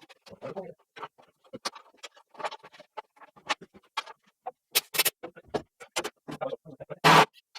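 Workshop clatter from hands and tools working on the stock car: irregular clicks, taps and knocks, with one loud, harsh burst lasting about a quarter of a second near the end.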